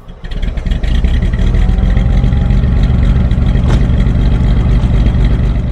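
1927 Daimler 25/85's six-cylinder Knight sleeve-valve engine running steadily, heard at the tailpipe as a dense, even exhaust rumble. It starts abruptly about a third of a second in.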